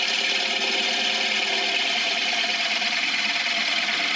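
Bowl gouge cutting a wooden bowl turning on a wood lathe: a steady, unbroken hiss of the tool shearing wood, over the lathe's running hum.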